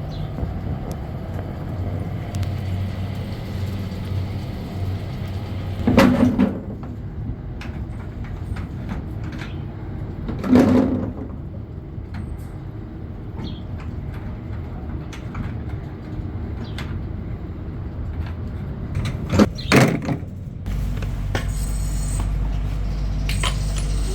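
Factory machinery running with a steady low hum, broken by three short, loud scraping clanks about 6, 10 and 20 seconds in. A deeper machine hum starts near the end.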